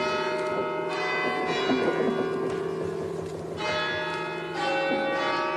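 Church bells ringing, with a new stroke every second or so, each one ringing on under the next.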